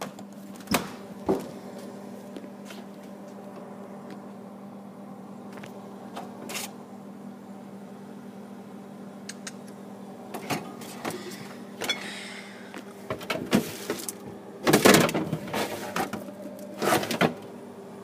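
Steady low hum of a refrigerator with its door open, with scattered knocks and clinks of jars and bottles handled on its wire shelves. The clatter comes thicker in the second half and is loudest near the end.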